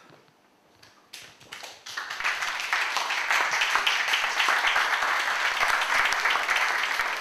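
Audience applauding: a few scattered claps about a second in, building within a second into full, steady applause from the crowd.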